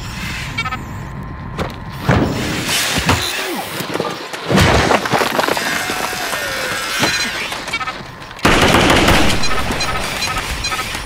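Gunshots: several loud shots spread through the stretch, the biggest burst about eight and a half seconds in.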